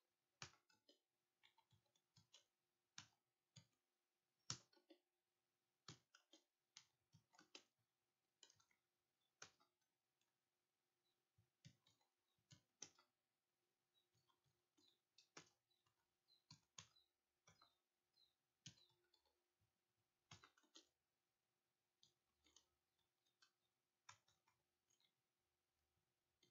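Faint, irregular clicking of computer keys being typed, in short runs with pauses between them, over a faint steady electrical hum.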